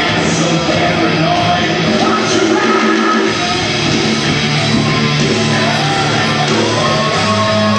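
Wrestling entrance music: a loud rock song with singing and electric guitar.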